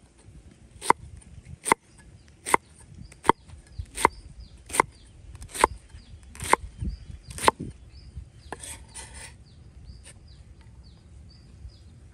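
Steel cleaver chopping red cabbage on a wooden chopping board: about ten sharp, evenly paced chops, a little over one a second, stopping about seven and a half seconds in. A brief rustle follows as the cut cabbage is handled.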